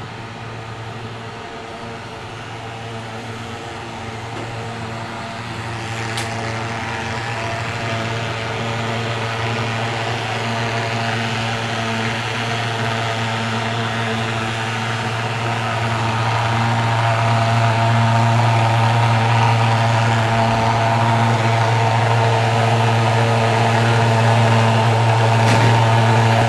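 Handheld pulse-jet thermal fogging machine running steadily while spraying anti-mosquito insecticide fog, a low droning hum that slowly grows louder.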